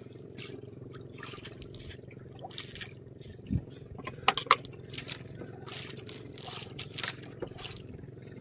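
Sea water splashing and trickling against a small wooden outrigger boat, with scattered scrapes from the fishing line being handled at the gunwale, over a steady low hum.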